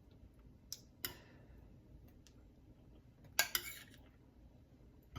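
A utensil clinking and scraping against a baking dish while spreading enchilada sauce: a couple of light knocks about a second in and a short cluster of clinks past the middle.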